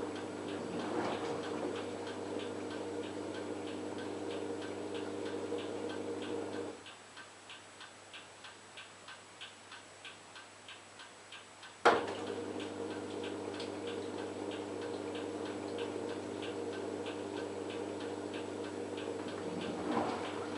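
LG F1443 KG washing machine running its wash cycle: a steady motor hum with regular ticking about three times a second. About seven seconds in the hum stops, leaving only faint ticks, and it restarts with a sharp click about five seconds later.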